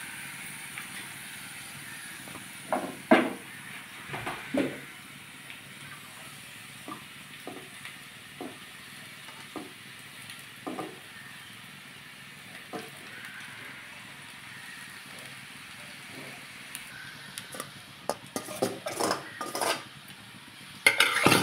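Chopped vegetables sizzling steadily in a non-stick frying pan, with scattered taps of utensils against the pan. Near the end comes a run of knocks and scraping as cooked rice is emptied from a steel bowl into the pan.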